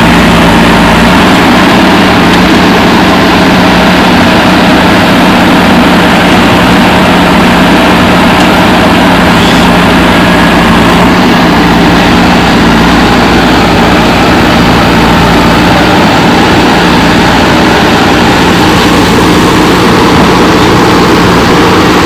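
JCB 3DX backhoe loader's diesel engine running steadily, loud and close.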